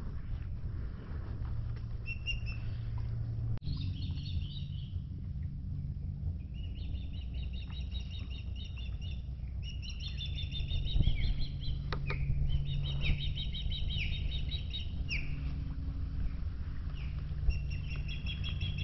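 Songbirds singing in the swamp trees, repeated phrases of rapid high notes for much of the time, over a low steady hum.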